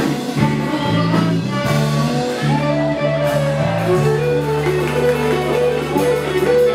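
A live band playing, led by an electric guitar playing melodic lines over a steady bass line.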